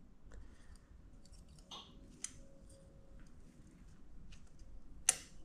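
Faint metallic clicks and scrapes of a steel feeler gauge blade being worked against an intake cam and valve bucket, with a sharp click a little after two seconds and a louder one near the end. The 0.127 mm blade will not slide in, a sign that the valve's clearance is too tight and needs a shim change.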